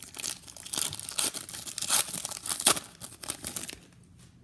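A plastic trading-card pack wrapper being torn open and crinkled, a dense crackling rustle that stops about four seconds in.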